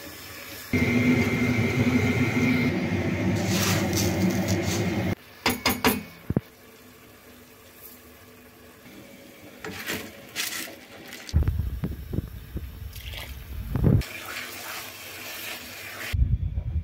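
Kitchen sounds from cooking a filling in a steel pot: a steady rushing noise for about four seconds that cuts off suddenly, a quick run of clinks, then scattered knocks and low rumbling handling noise as a wooden spoon stirs the mixture.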